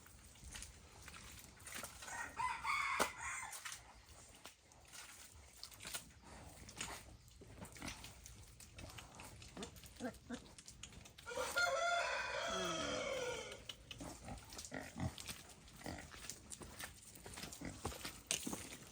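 A rooster crows once, a long call with a falling end about halfway through, and a shorter animal call comes a couple of seconds in. Scattered small clicks and knocks run between the calls.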